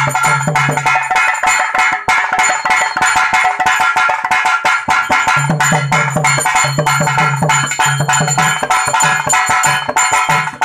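Folk hand drums, a lap-held drum and a pair of drums mounted on a stand, played in a fast, dense rhythm. From about halfway in, a repeating low note pattern plays under the strokes.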